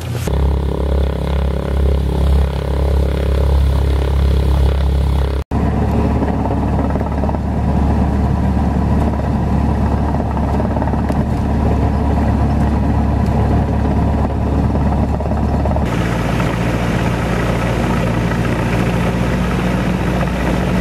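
Single-engine light aircraft's piston engine running steadily at low power while holding for the runway, heard from inside the cabin as a loud low drone. The sound drops out for an instant about five seconds in and changes abruptly again about sixteen seconds in.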